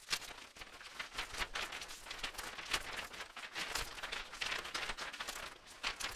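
Logo-intro sound effects: a quick, irregular run of rustling, crackling clicks and swishes, mostly high in pitch, with no clear tune.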